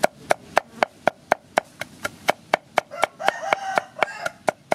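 A steel meat cleaver chopping garlic cloves on a round wooden chopping block, in quick even strokes about four a second.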